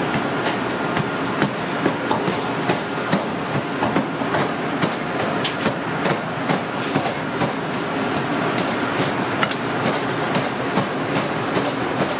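A run of sharp, evenly spaced knocks, about two or three a second, over a steady background noise. The knocks grow weaker and less regular in the last few seconds.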